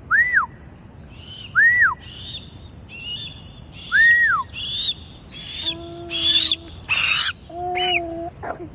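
Birds calling: three clear whistled calls that rise and then fall, among quick high chirps, with two held low notes later on.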